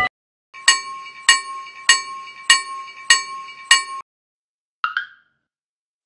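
Railroad crossing warning bell ringing six evenly spaced strikes, about one every 0.6 seconds, each leaving a bright chiming ring. A short chirp follows near the end.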